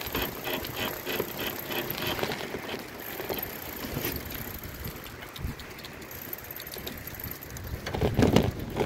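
Bicycle being ridden, with a light ticking about three times a second for the first couple of seconds over steady rolling and air noise. Wind buffets the microphone, louder near the end.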